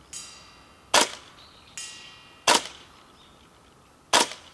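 Tokyo Marui CQBR Block 1 gas blowback airsoft rifle firing three single shots about a second and a half apart, each a sharp crack. Twice, under a second after a shot, a metal target rings briefly as a BB hits it.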